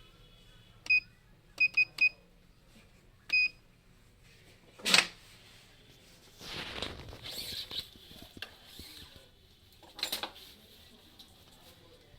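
Short high electronic beeps, one at about a second in and then a quick run of three, with one more at three and a half seconds, typical of an electronic badminton stringing machine signalling that it has reached tension. These are followed by a louder brief scraping sound about five seconds in, a couple of seconds of rustling, and another brief scrape near the end.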